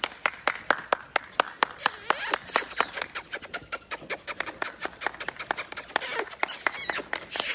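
Rapid, steady hand clapping, about six claps a second.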